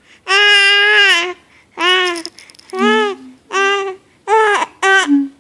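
Baby with the hiccups letting out a series of about six loud, high cries, the first about a second long and the rest shorter, one after another with short breaks between.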